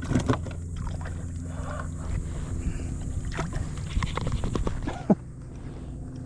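Scattered knocks and clicks of gear being handled on a plastic fishing kayak, with a sharp click about five seconds in, over a steady low hum.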